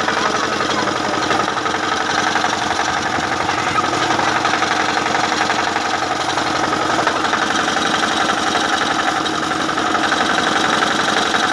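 Single-cylinder water-cooled diesel engine of a generator set running steadily, with a fast, even beat and no change in speed.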